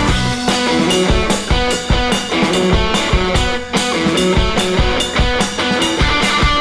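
Background rock music: guitar over a drum kit keeping a steady beat.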